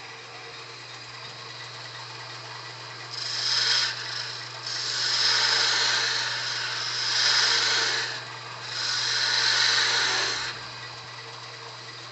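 Wood lathe running with a steady hum while a turning tool cuts into the spinning hard-maple blank in four bursts, from about three seconds in until about ten and a half seconds in. The cuts are forming a small 5/16-inch tenon.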